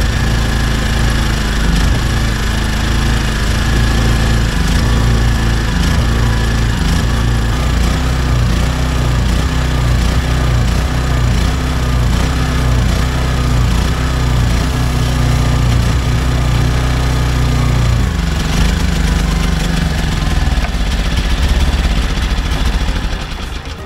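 Denyo GE-550 generator's small Robin engine running under a light-bulb load, its speed surging up and down in a regular beat about once a second. This is hunting, caused by secondary air drawn in between the carburettor insulator and the engine head. Near the end the engine runs down and stops.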